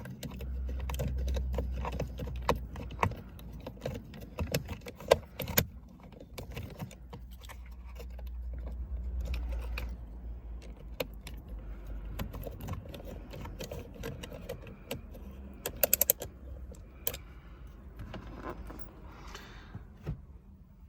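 Small metallic clicks, taps and rattles of screws and a screwdriver as a dashboard unit is screwed back into place, with low rumbling handling noise at times and a quick run of ticks about three quarters of the way through.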